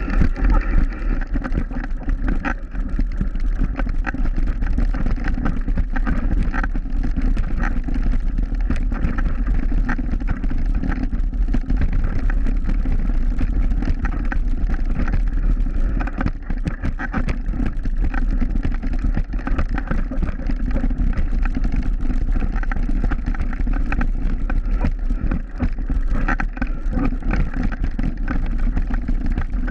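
Mountain bike riding down a rocky, loose-gravel singletrack: a steady rumble of wind on the bike-mounted microphone, with a constant irregular crunch and rattle of tyres and bike over stones.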